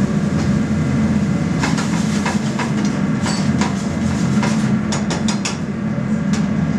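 Metal spoon clinking and scraping against a frying pan as a sauce is stirred, a scattered run of sharp taps between about two and six and a half seconds in. Under it runs a steady low kitchen hum.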